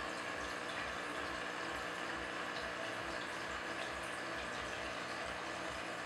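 Aquarium filter running: steady water trickle and pump noise, with a low throb repeating a few times a second.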